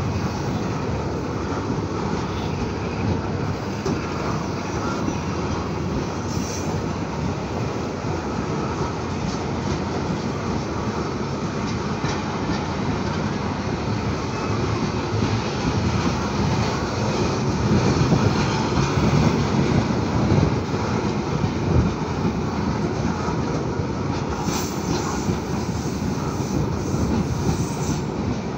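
Coal hopper wagons of a freight train rolling past on the rails: a continuous rumble and clatter of steel wheels on track, growing a little louder about two-thirds of the way in.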